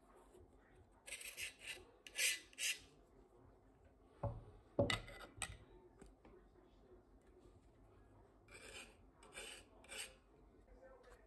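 Knife blade scraping excess wax off the metal head of a vintage fireman's axe in short rasping strokes, in two groups, with a couple of knocks in between as the axe is handled.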